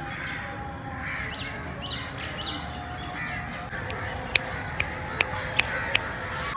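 Crows cawing in the background, with a few short high chirps. About four seconds in come five sharp clicks in quick succession, the loudest sounds.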